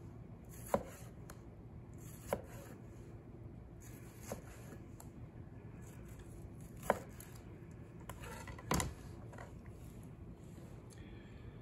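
Chef's knife slicing a tomato on a plastic cutting board, the blade knocking the board at the end of each cut: about five sharp knocks a second or two apart, the loudest about nine seconds in.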